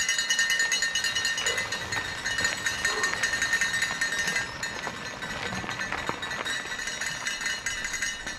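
Cowbells rung by spectators along a race course, shaken rapidly and continuously with many overlapping strikes, giving a bright metallic ringing.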